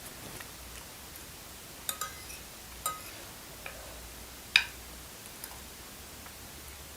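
Metal fork clinking against the bowl while eating: a handful of scattered light clinks, some ringing briefly, with the sharpest one about four and a half seconds in.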